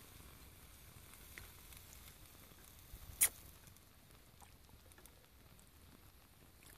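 Ramyeon in a small camping pot simmering faintly, a soft patter and sizzle, with one sharp click about three seconds in.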